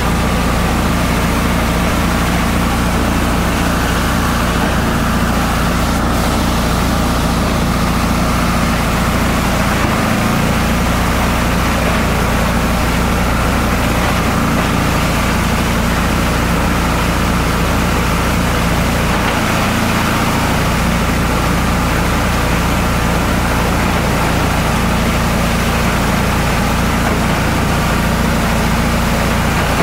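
Esteban multi-purpose chopper/shredder running steadily while shredding paper, a constant machine hum whose lowest part drops briefly twice.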